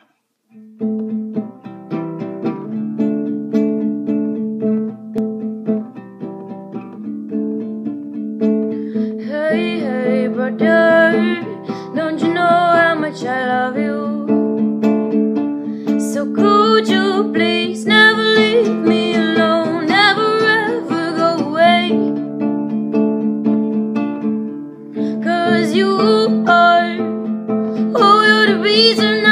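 Nylon-string classical guitar playing chords, joined by a woman singing from about ten seconds in, in several sung phrases with short guitar-only gaps between them.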